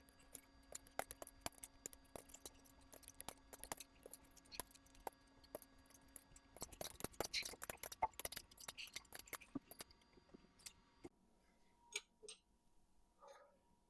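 Light metallic clicks and clinks of small metal parts or tools being handled, coming thick and fast for about eleven seconds, then only a few scattered taps. A faint steady hum lies under them.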